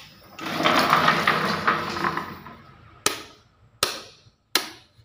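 A loud scraping rustle lasting about two seconds, then three sharp clicks about three-quarters of a second apart as the miniature circuit breakers in a wall-mounted breaker panel are switched off.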